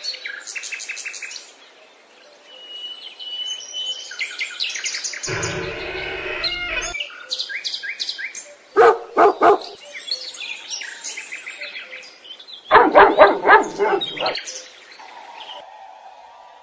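Birds chirping and singing, with louder animal calls breaking in: three short calls about nine seconds in and a longer pulsing call around thirteen seconds.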